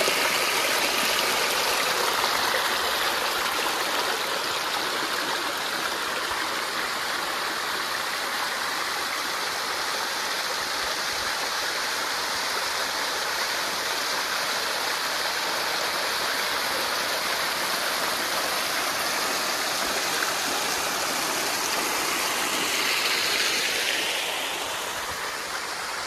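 Waterfall in strong flow: a steady, dense rush of falling water.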